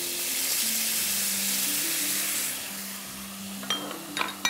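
Yogurt sizzling as it hits hot oil with whole spices and sliced garlic in a frying pan: a loud hiss that eases off after about two and a half seconds. A few short clicks come near the end.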